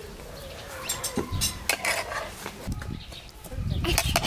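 Metal spoon scraping and clinking against a frying pan as fried potatoes are spooned out onto a glass platter, in two clusters of clinks about a second in and near the end.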